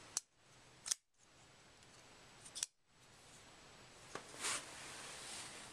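Folding knife being handled: several sharp metallic clicks as the blade is opened and closed and the lock engages, with a short scraping slide about four and a half seconds in.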